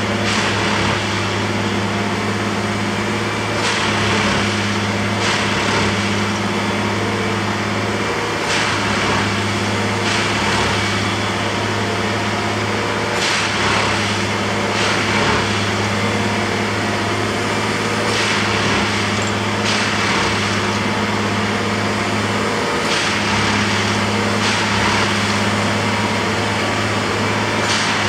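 Colas Rail track tamping machine at work: its diesel engine runs steadily, and a harsh noise swells every two to three seconds as the machine tamps the ballast sleeper by sleeper.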